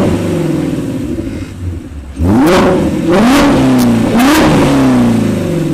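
Shelby GT350's 5.2-litre flat-plane-crank V8, through freshly fitted long tube headers and a full exhaust, being revved: after the first rev falls away, three more quick blips come about two, three and four seconds in, each sharp rise followed by a slower fall back toward idle.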